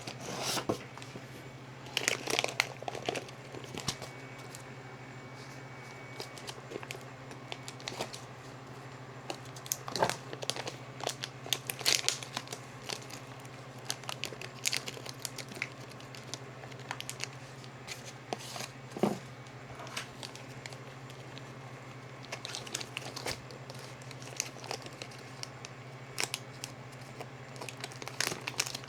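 Plastic packaging crinkling and tearing in irregular bursts, with scattered clicks and knocks of handling, over a steady low hum.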